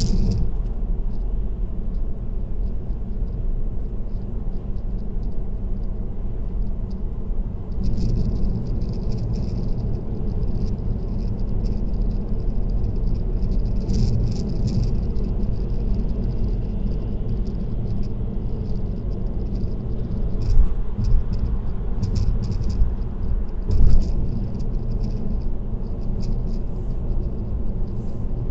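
Car driving at highway speed, heard from inside the cabin: steady road and tyre rumble with light rattling that comes and goes. A few short thumps come a little past two-thirds of the way through.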